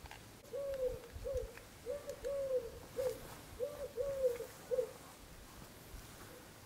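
A dove cooing: a series of soft coos in short phrases, each with a longer middle note and a short last note.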